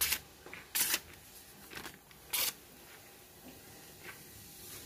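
A freshly sharpened forged kitchen knife slicing through a strip of paper. There are three short, hissy cuts in the first two and a half seconds and a fainter one later. The clean slicing shows a keen edge.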